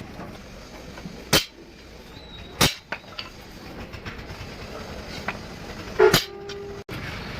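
Three sharp knocks over low workshop background noise, about a second and a half and then three and a half seconds apart. The last is the loudest and is followed by a brief ringing tone.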